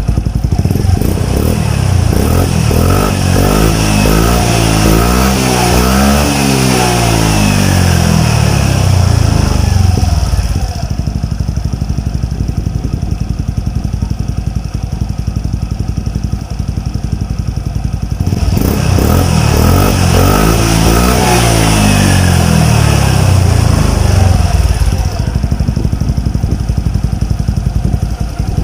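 Suzuki Skydrive Sport scooter engine through an Exos X6 racing exhaust pipe, revved up and down in two spells with a steadier, lower stretch between them.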